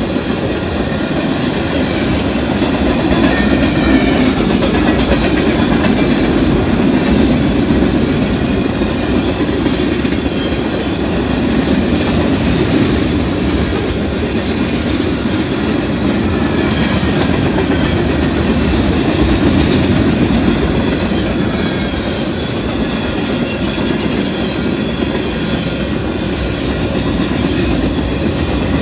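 Freight train cars rolling steadily past at a level crossing: a continuous rumble of steel wheels on the rails with clacking over the rail joints.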